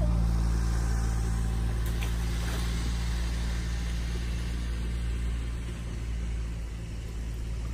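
A steady low engine hum that slowly fades.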